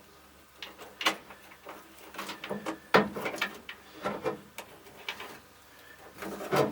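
Scattered light clicks, knocks and rattles of hands working metal and plastic parts behind a 1964 Dodge D100's dashboard while fitting the speedometer cable, with sharper knocks about a second in, around three and four seconds, and just before the end.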